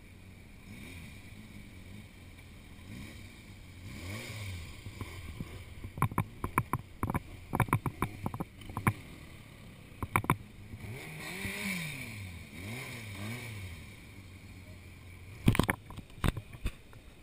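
Motorcycle engine at low speed, its revs rising and falling as it is ridden slowly through a tight slalom. Several clusters of sharp knocks stand out louder than the engine.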